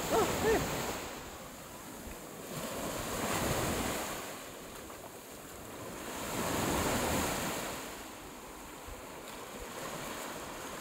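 Small waves breaking and washing up onto a sandy shore, the surf swelling louder twice, about three seconds in and again about seven seconds in.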